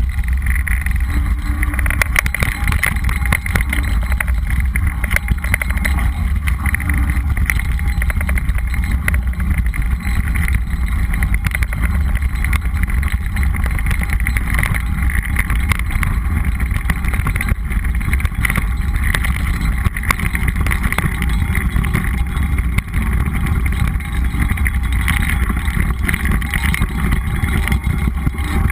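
Mountain bike rolling over a gravel dirt trail, heard through an action camera's microphone as a loud, steady rumble with wind buffeting. Frequent small knocks and rattles come from the bumps.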